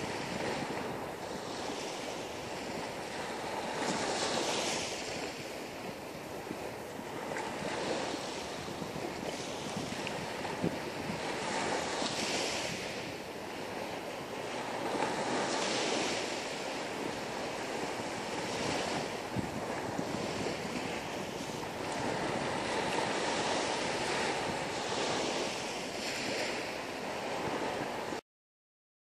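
Sea waves washing onto a beach, the surf swelling and fading roughly every four seconds, with wind on the microphone. The sound cuts off suddenly near the end.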